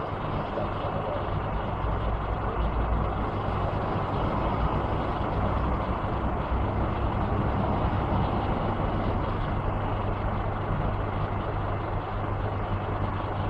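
A steady low rumble with a constant low hum, like a vehicle engine idling, with no distinct bangs.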